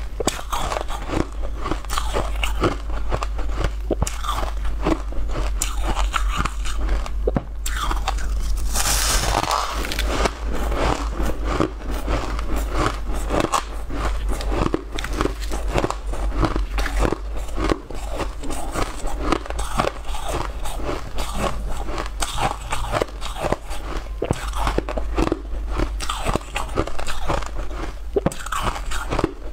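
Close-up crunching of packed frozen ice being bitten and chewed, a dense run of crisp crunches, with a short hiss about eight seconds in.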